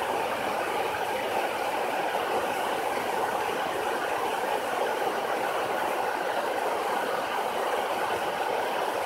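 Water falling over a dam's spillway and churning in the river below: a steady, unbroken rush of white noise.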